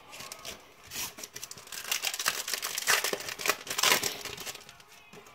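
Foil Yu-Gi-Oh booster pack wrapper crinkling and tearing as it is opened, in a run of crackles loudest about three and four seconds in.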